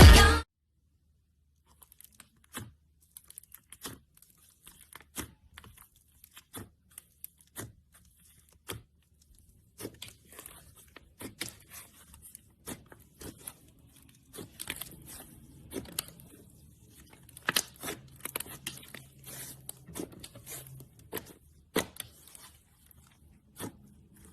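Slime worked by hand, making irregular sticky clicks and crackling pops that come more thickly in the second half. A pop song cuts off just as it begins.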